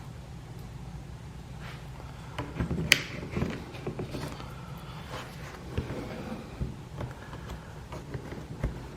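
Plastic push pins being pressed into drilled holes in a side-by-side's door panel: a few separate clicks and taps of plastic handling, over a low steady hum.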